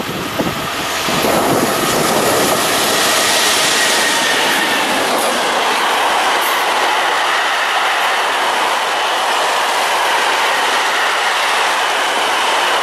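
Freight train of tarpaulin-covered wagons passing close by at speed: a steady, loud rolling noise of steel wheels on the rails that builds up over the first second or so and then holds.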